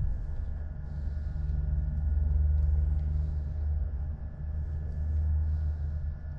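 A low rumble that swells and eases every second or two, with a faint steady whine above it.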